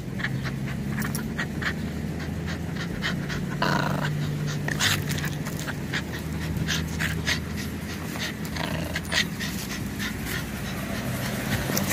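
A puppy panting hard as it tugs and bites on a rope toy, with many short clicks and scuffs from the tugging, over a steady low hum.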